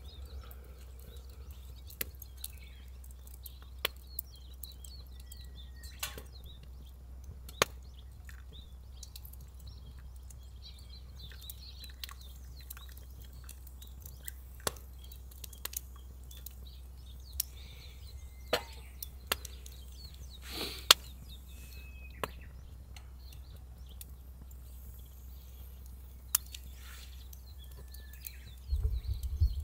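Wood fire burning in a small firewood grill, giving sparse, irregular pops and snaps about once a second over a steady low rumble. Faint bird chirps come now and then.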